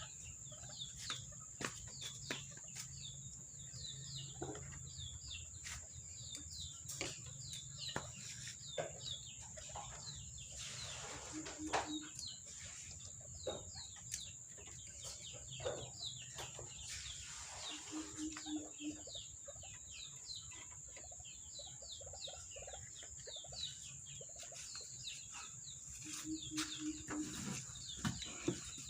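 Birds calling: soft clucking, three short low calls and many quick high chirps, over a steady high-pitched whine.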